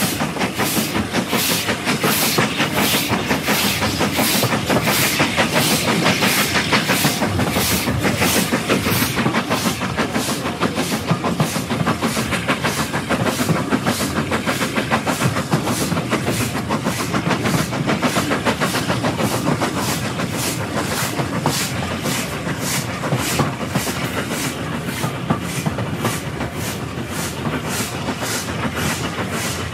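BR Standard Class 4 steam locomotive running with a steady, even exhaust beat of about two chuffs a second, quickening slightly. The wheels clatter on the rails under a hiss of steam, heard from the front carriage.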